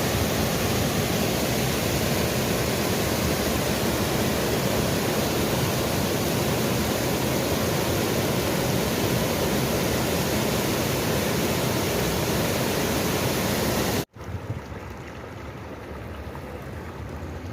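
Rushing river water, a loud steady rush. It cuts off abruptly about 14 seconds in and is replaced by quieter flowing water.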